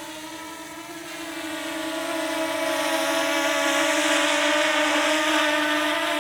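DJI Mini 2S quadcopter drone's propellers giving a steady high whine. It grows louder from about a second in, peaks around the middle, and fades a little near the end, as the drone flies close past the microphone.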